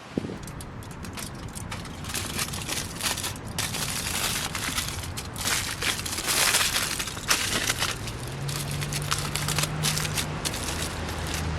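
Aluminium foil being crumpled and crinkled by hand, irregular crunching and crackling, as sweet potatoes are wrapped for baking in the fire.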